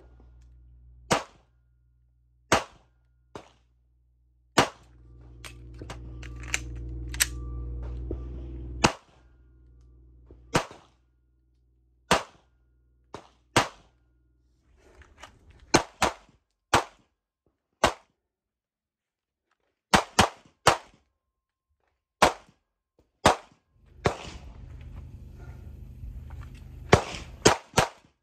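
Sig Sauer P365 XL 9mm pistol being fired in a string of sharp shots, singly and in quick pairs and triplets, a second or two apart, about thirty in all.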